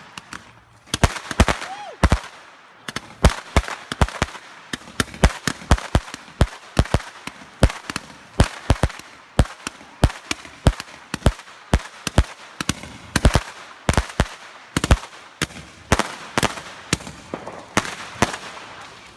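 Consumer fireworks going off in a rapid, irregular string of sharp bangs and pops, two or three a second, with crackling between them.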